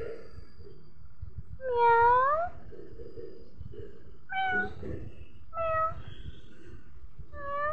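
A pet crying in short, rising, whining calls, four of them a second or two apart, the first the loudest.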